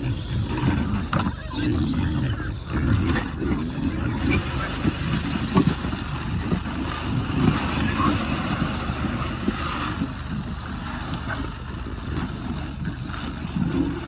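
A herd of Mangalitsa and Berkshire pigs grunting and jostling at a wooden feed trough as pig feed is poured in from a sack.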